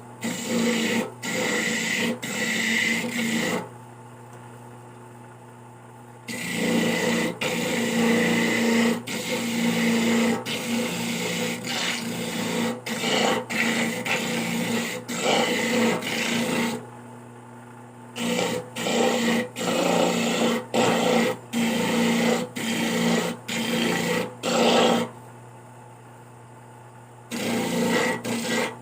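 Coconut meat being scraped on a hand coconut grater (kudkuran), in runs of quick rasping strokes broken by short pauses, over a steady low hum.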